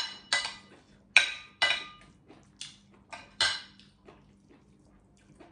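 Metal spoon clinking and scraping against a ceramic plate as food is stirred and scooped, about six sharp ringing strikes in the first four seconds, then only faint small taps.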